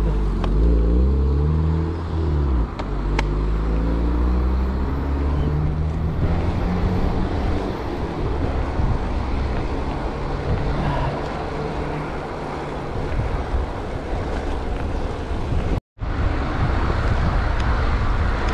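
A car engine pulling away and accelerating, its pitch rising and falling over the first few seconds, then fading under steady wind and road noise.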